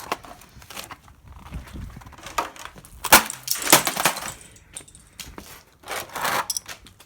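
A hand tool being worked against a computer motherboard, crunching and scraping. The two loudest bursts come about three and six seconds in.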